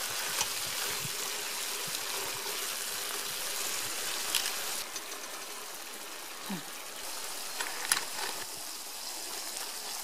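Tomato and onion sauce sizzling in a frying pan, with a few sharp knocks of a spatula against the pan. The sizzle softens a little about halfway through.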